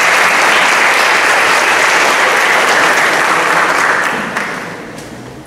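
Audience applauding, dying away from about four seconds in.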